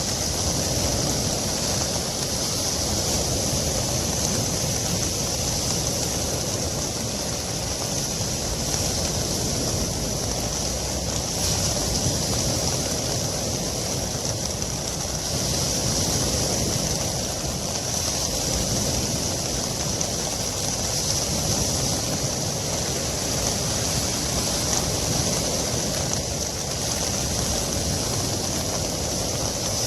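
Ocean surf breaking steadily on a beach in a storm, with wind blowing.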